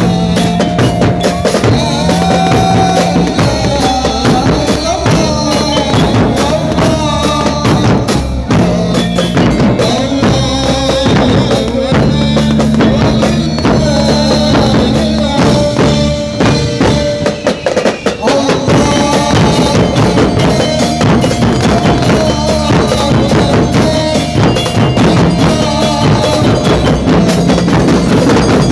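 Loud music with a dense, fast drum beat over a steady bass line. It thins out briefly a little after halfway, then comes back in full.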